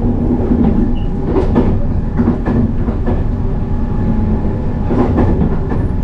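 Limited express train running at speed, heard from inside the vestibule: a loud, steady rumble with irregular clacks of the wheels over the rails.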